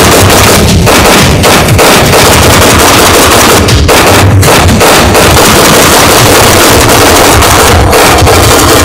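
Loud dramatic battle soundtrack: music with heavy drums mixed with gunfire and explosion sound effects, played back through the theatre's sound system.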